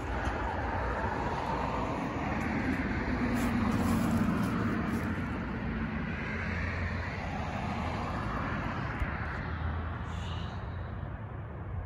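A car driving past on the road, its tyre and engine noise swelling to a peak about four seconds in and then slowly fading as it moves away.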